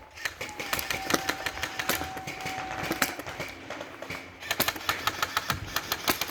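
Airsoft guns firing on full auto: two long strings of rapid clicking shots, the first with a steady whine under it, the second starting about four and a half seconds in.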